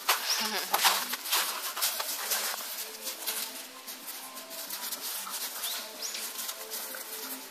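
Birds calling in the background, with short high chirps and repeated short low calls. In the first two and a half seconds, a burst of louder crunching and scuffling in the snow as two dogs wrestle.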